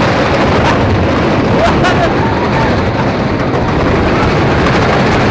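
Thunderhead, a wooden roller coaster, with its train running at speed, heard from the front seat: a loud, steady rumble and clatter of the train on the wooden track under heavy wind noise on the microphone.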